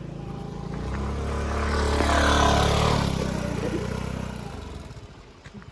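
A vehicle engine pulling hard up a rough track. It grows louder as it approaches, passes at its loudest about two and a half seconds in with tyre noise, and fades away by about five seconds in.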